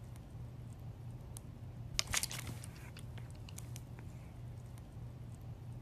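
Toddler sucking on a pacifier: scattered soft clicks and smacks, with a denser cluster about two seconds in, over a steady low hum.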